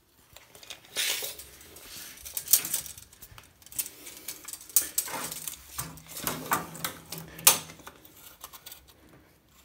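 Steel tape measure being pulled out and handled against floor tiles: irregular clicks, rattles and scrapes. A low steady hum joins for about two seconds past the middle.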